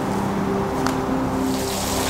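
Background music with low held notes. Near the end a steady hiss of bacon sizzling over a campfire fades in.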